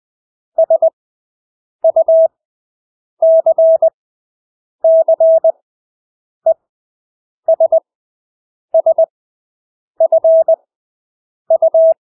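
Morse code (CW) practice tone sent at 20 words per minute with extra-long Farnsworth gaps between letters: a steady mid-pitched beep keyed in quick clusters of dots and dashes, one letter about every second and a half, with silence between.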